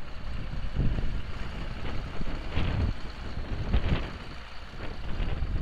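Allis-Chalmers 7060 tractor's 670T six-cylinder turbo diesel running as the tractor drives past, with uneven surges in the sound.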